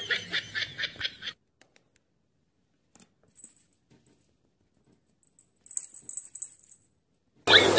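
Small bell on a cat's collar jingling faintly as the cat scratches its neck with a hind paw: briefly about three seconds in, then for about a second near the end. Before that, other sound stops abruptly about a second in.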